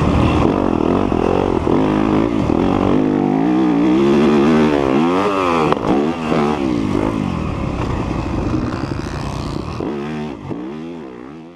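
2019 Yamaha YZ250F's 250cc four-stroke single-cylinder engine revving up and down repeatedly as the dirt bike is ridden around a motocross track. The sound fades out near the end.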